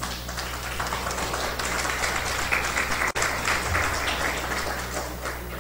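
A small audience clapping, building after about a second and dying away near the end.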